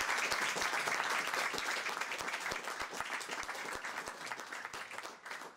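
Audience applauding, a dense patter of many hands clapping that slowly dies away.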